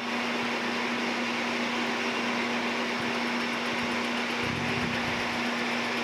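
Metal lathe running steadily with a constant motor hum and whirr, spinning a brass steam-whistle valve body while a flat valve-seat cutter in the tailstock is fed gently toward the seat. A brief low rumble comes a little past four seconds in.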